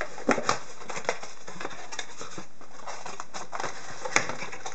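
Handling sounds of a trading-card blaster box being opened by hand: scattered clicks and light crinkles of cardboard and wrapping, over a steady hiss.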